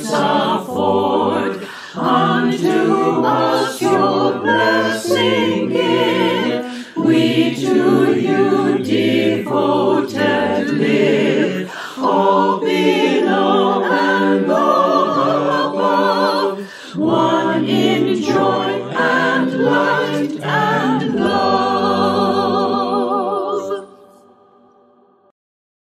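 Mixed men's and women's choir singing a hymn a cappella, in harmony. Near the end they hold the final chord for a few seconds, and it fades out.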